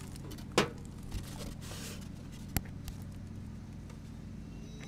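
Neighbour's lawnmower engine running steadily in the background, with a couple of light knocks as spray-glued foam sheets are handled and pressed together.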